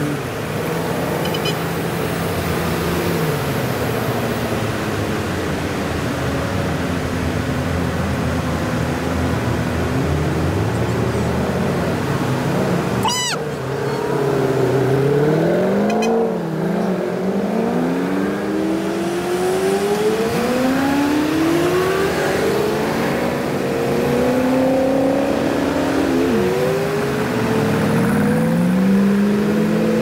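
Corvette engine on the road, running steadily at first, then from about halfway revving up repeatedly, its pitch climbing and dropping back with each gear change.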